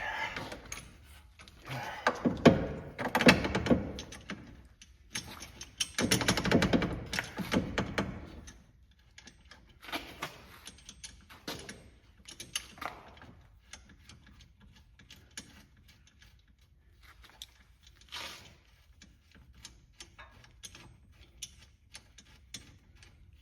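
Steel bolt and collar knocking and clinking against the steering rack and subframe as the bolt is worked into line and fed through the bushing. Two bouts of dense clatter come in the first eight seconds, then scattered light clicks.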